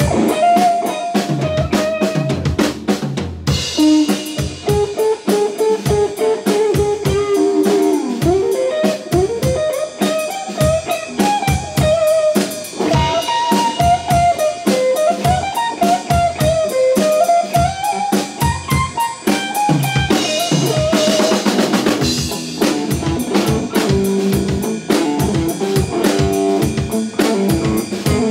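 Live blues instrumental: an electric guitar plays a wandering lead melody over a busy drum kit. About twenty seconds in, the cymbals swell, and the guitar moves to a repeating lower riff.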